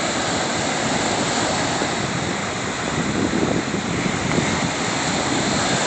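Small surf waves breaking and washing up a sandy beach: a steady rushing wash of water.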